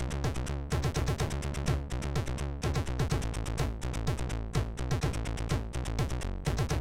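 Commodore 64 chiptune from its MOS 6581 SID sound chip: electronic music with a steady bass line and a fast, even drum beat.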